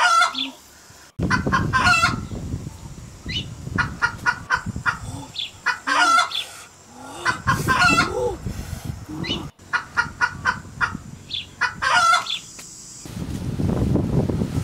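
Chickens clucking and calling in repeated bursts about every two seconds, over a steady low noise.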